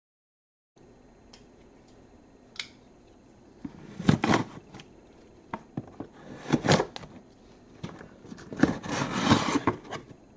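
Hands working on small hardware: scattered light clicks, taps and brief scraping or rustling, in a few clusters.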